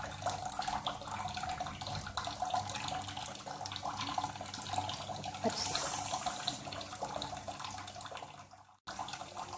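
Milk poured from a carton into a glass of ice cubes and jelly, along with handling of the carton, over a steady rushing noise. The sound cuts out for a moment near the end.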